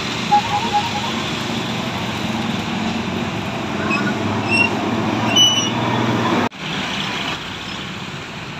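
Large bus's diesel engine running close by in traffic, its low rumble building for a couple of seconds and then cutting off suddenly about six and a half seconds in, after which a quieter engine noise goes on. A few short high chirps sound around the middle.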